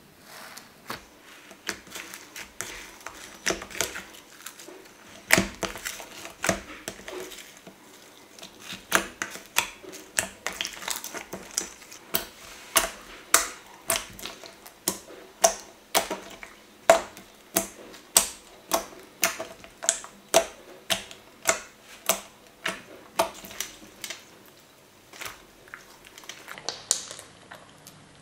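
Hands pressing, poking and squeezing pink water slime, making a long series of crisp clicks and pops as air pockets trapped in the slime burst, about one or two a second.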